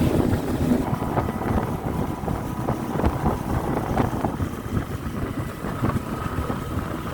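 Wind buffeting the microphone in uneven gusts. A steady engine hum cuts out about a second in.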